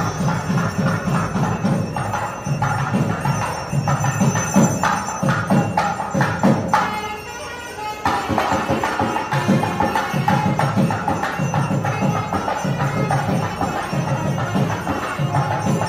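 South Indian temple music: a nadaswaram's reedy horn playing over steady thavil drum beats.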